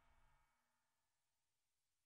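Near silence: the last faint ring of the music dies away about half a second in.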